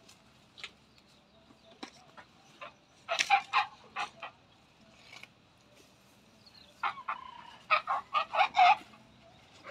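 Chickens clucking in two runs of short, rapid calls, one about three seconds in and a longer, louder one from about seven seconds in.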